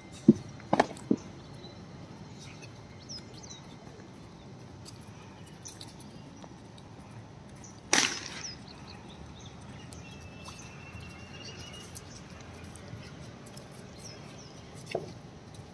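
Low, steady outdoor background noise broken by a few sharp knocks: three close together near the start, a louder one about halfway, and one near the end.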